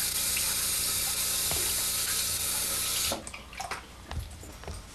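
Bathroom sink faucet running steadily as he rinses after shaving; the water cuts off about three seconds in, followed by a few faint knocks.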